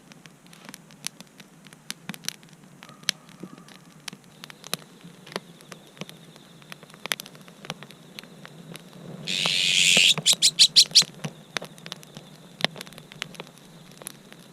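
Wood fire crackling in a Snow Peak fire pit, with irregular sharp pops and snaps. About nine seconds in, a louder rasping hiss breaks into a quick run of about eight short pulses.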